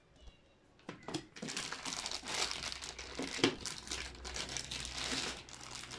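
Clear plastic bag crinkling and rustling as a laptop power adapter is handled inside it, starting about a second in and going on in quick irregular crackles.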